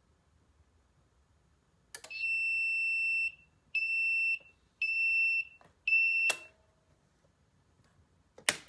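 Panel-mount alarm buzzer on a powder coating oven control box sounding four high beeps, the first long and the others shorter, as the countdown timer runs out. A relay click sets it off, a click cuts it off, and a sharp click comes near the end.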